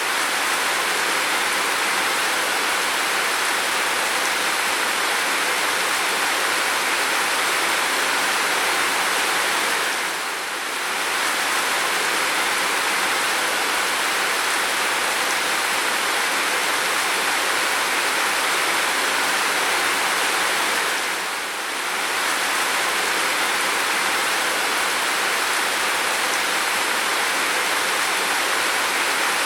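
Heavy rain falling in a steady, dense hiss with no distinct drops, dipping slightly in level for a moment about every eleven seconds.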